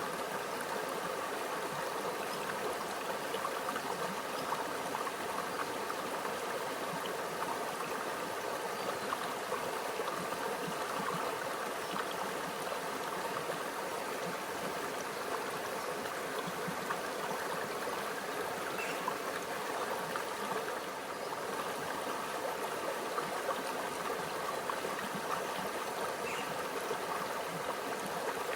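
A small stream flowing steadily over rocks, a continuous trickling and gurgling with no breaks.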